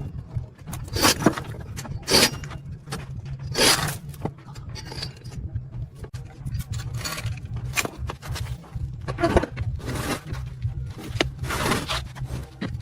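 Repeated scraping and clinking of metal tools and parts, in irregular strokes about every second, over a steady low hum.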